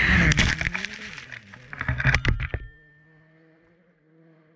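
Citroën C3 R5 rally car's turbocharged four-cylinder engine dying away as the car drives off on gravel, with sharp clatters of flung stones and gravel through the first three seconds. After that only a faint steady engine hum is left.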